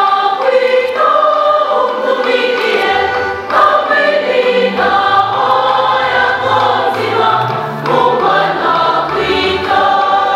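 Choir singing a hymn, several voices together, with a low bass line joining about halfway through.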